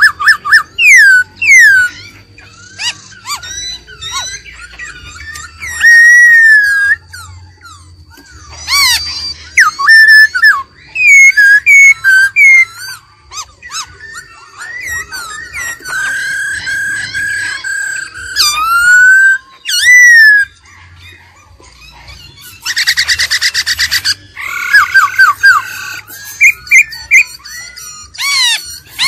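Black-throated laughingthrush singing: a loud, varied run of whistled notes and sliding glides, broken by a burst of rapid buzzy trilling about two-thirds of the way through.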